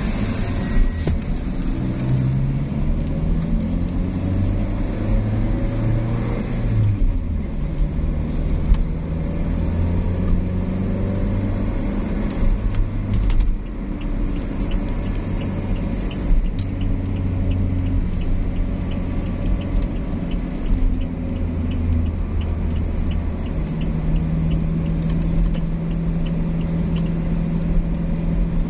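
Car engine and tyre noise heard from inside the cabin while driving. The engine note rises as the car accelerates, drops with a gear change about seven seconds in, then holds steady at cruising speed. A faint, regular ticking runs through the second half.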